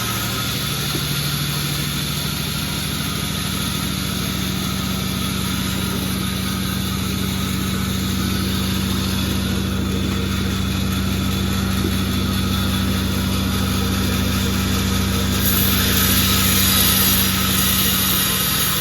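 Sawmill engine running steadily with an even hum and a noisy rasp over it. For about two seconds, roughly three-quarters of the way through, a brighter, louder hiss comes in over the steady running.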